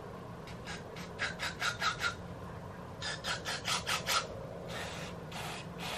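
Aerosol can of MAF sensor cleaner spraying through its straw into a mass airflow sensor. It gives two quick runs of short squirts, about five a second, then three longer sprays near the end.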